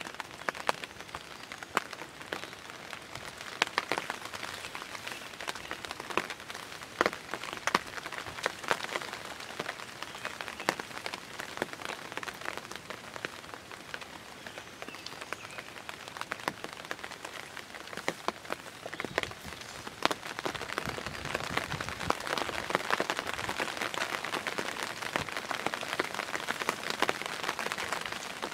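Rain falling: a steady hiss with many irregular sharp drop hits, a little heavier in the last third.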